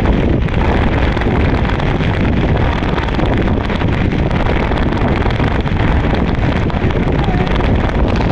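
Wind buffeting the microphone: a steady, loud, rumbling noise that is heaviest in the low end.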